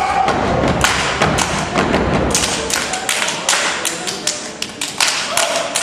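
A step team stomping and clapping in unison: a fast, tight rhythm of sharp hand claps and foot stomps, with a voice calling out near the end.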